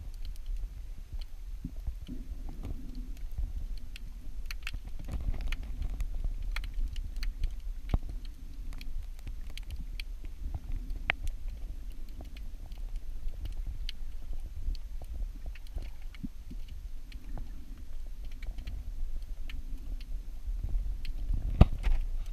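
Underwater ambience heard through a submerged camera: a steady low rumble with scattered sharp clicks and crackles.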